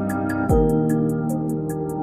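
Background music: sustained synth chords over a quick, steady hi-hat tick, with one deep kick drum about a quarter of the way in.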